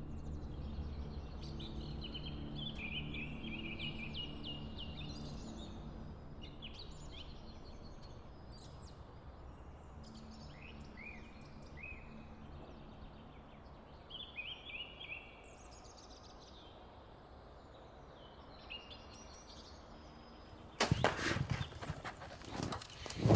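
Songbirds chirping and singing, over a low music bed that fades out in the first few seconds. About 21 seconds in comes a sudden loud burst of sharp knocks and crashing: the bow shot hitting the bear.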